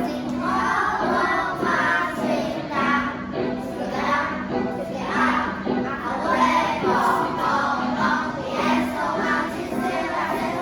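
A group of children singing an English song together over backing music.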